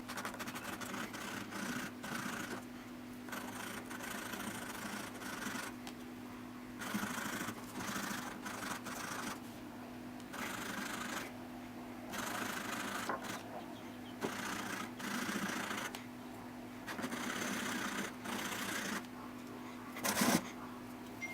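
Cut end of a water-cooling hardline tube being chamfered and smoothed by hand, a series of irregular rasping strokes, under a steady low hum. Two short louder handling sounds come near the end.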